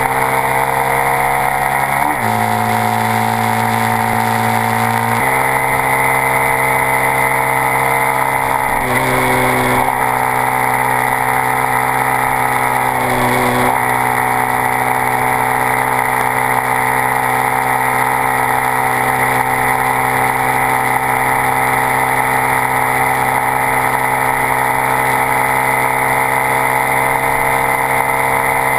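Honda Grom 125's single-cylinder engine through a Two Brothers S1R aftermarket exhaust, pulling through the gears under load. The pitch climbs and then drops at each upshift, about 2, 9 and 13 seconds in, and then holds steady at cruising speed.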